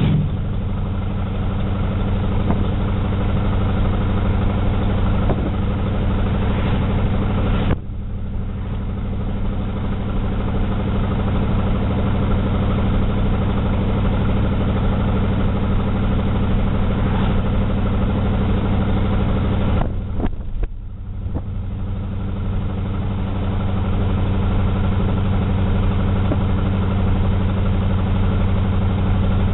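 Car engine running steadily under way, heard from inside the cabin as a steady low drone. The sound drops suddenly about eight seconds in and dips briefly again around twenty seconds, then settles back to the same drone.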